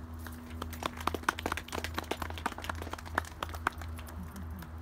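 A small audience clapping: scattered, irregular hand claps for about three and a half seconds, dying away near the end, over a steady low hum.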